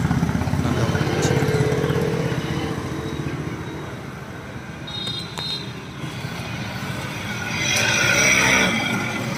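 A motor vehicle engine running close by, its low throb loud at first and fading over the first few seconds. Near the end there is a louder rush of noise.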